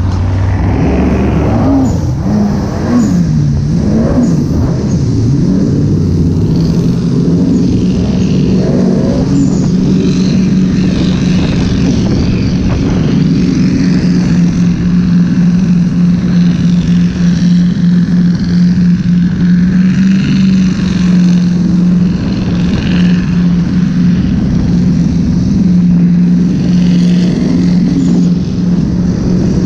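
Yamaha GP1800R personal watercraft's 1.8-litre four-cylinder four-stroke engine running at speed. Its note rises and falls with the throttle for the first few seconds, then holds a steady high-speed drone.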